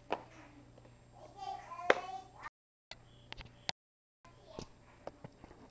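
A baby's short high-pitched babble, with scattered taps and knocks of hands and a toy against a wooden floor. The sound cuts out completely twice for a moment.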